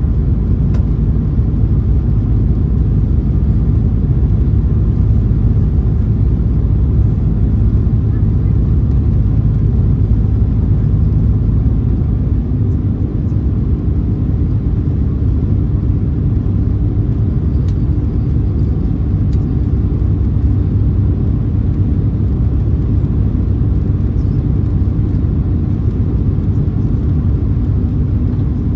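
Airliner cabin noise during the climb after takeoff: jet engines and airflow make a steady low rumble heard from a window seat. About halfway through the lowest rumble eases slightly and a steady hum settles in.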